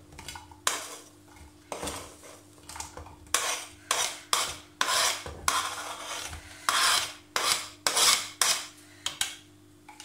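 Wooden spoon scraping chopped vegetables off a plastic cutting board into a pot, in a dozen or so short, sharp scraping strokes with light knocks of the spoon against the board.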